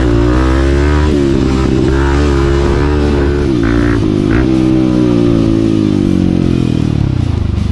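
Honda CRF 250 F's single-cylinder four-stroke engine under riding load on a dirt track. Its pitch rises and falls several times as the throttle is opened and closed through the gears.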